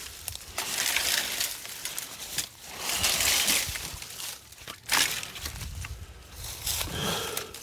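Leafy branches and small limbs rustling and crackling as brush is bent and handled, in several separate bursts of a second or so each.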